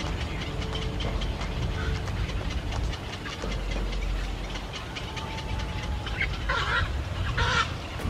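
Black-crowned night herons giving two short, harsh squawks near the end, over a steady low rumble.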